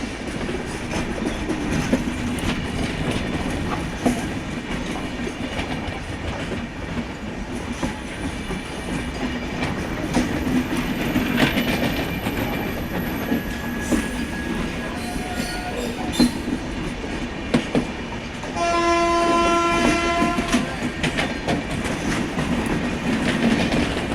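Passenger train running, a steady rumble with scattered rail-joint clicks. Late on, the WAP-7 electric locomotive's horn sounds one steady blast of about two seconds, the loudest sound here.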